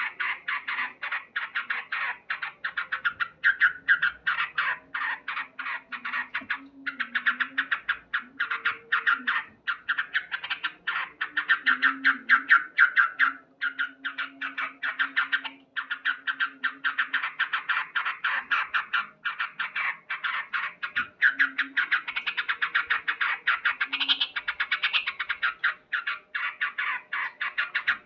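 Male yellow-vented bulbul (trucukan) giving its loud 'cuk cuk' call as a fast, unbroken chatter of short sharp notes, about eight to ten a second, pausing briefly a few times. It is the excited territorial calling of a male in breeding condition.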